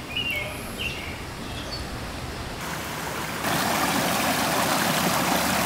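Shallow rocky creek running over stones: a steady rush of water that grows louder about three seconds in. A few short chirps at the very start.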